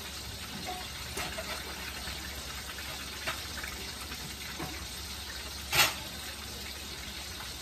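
Steady sizzle of food frying in hot oil in a pan, with a few light clicks and one louder knock about six seconds in.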